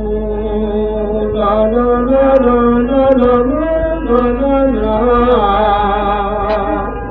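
Sindhi Sufi folk singing: a man's voice holding long, bending notes over a harmonium, with slow glides in pitch.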